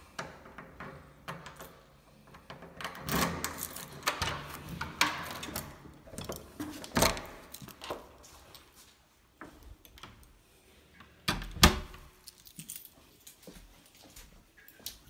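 A bunch of keys jangling, with the clicks and knocks of a door being handled. A heavy thud about three-quarters of the way through is the loudest sound.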